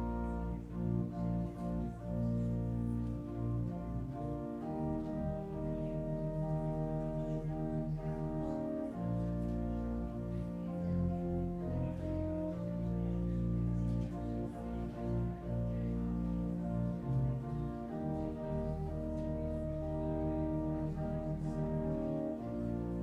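Slow instrumental music: long held chords over a deep, sustained bass line, changing every few seconds.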